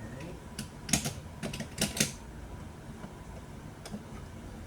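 A few sharp clicks and taps from a Hot Wheels toy car and its plastic track or launcher being handled and set up: a cluster in the first two seconds and one more near the end.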